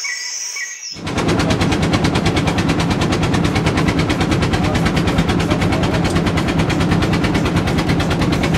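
Boat engine running close by, a fast, even pulsing with a strong low hum. It comes in loud about a second in and holds steady.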